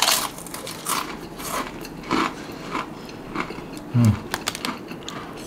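Mr. Potato crisps crunching as they are bitten and chewed close to the microphone, a string of irregular crisp crunches, with a short low hum about four seconds in.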